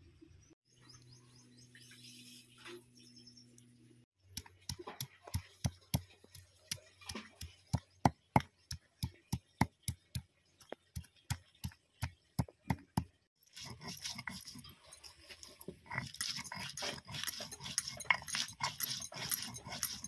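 Stone pestle pounding dried red chillies and garlic on a flat stone grinding slab (sil-batta), about three sharp stone-on-stone knocks a second, then a short pause and steady rubbing strokes as the hand stone grinds the paste against the slab, a rough scraping with many small clicks.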